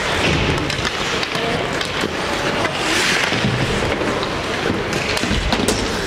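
Ice hockey play: skates scraping and carving on the ice, with sharp clicks of sticks and puck scattered through, several in quick succession near the end.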